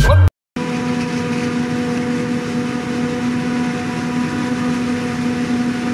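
A forage harvester chopping maize and a Fendt tractor running alongside it with a silage trailer. The machines give a steady, even drone with a constant hum held throughout.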